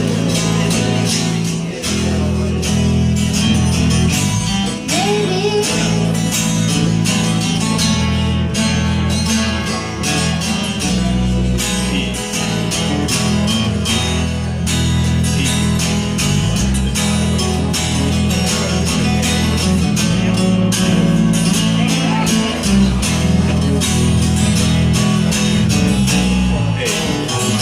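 Instrumental break in a country song: guitar over bass notes and a steady beat.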